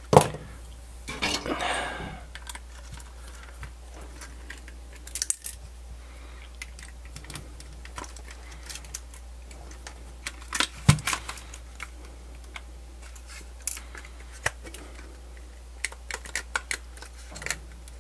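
Scattered clicks and light taps of a personal cassette player's plastic casing and small parts being handled and taken apart on a workbench. The sharpest click comes about eleven seconds in.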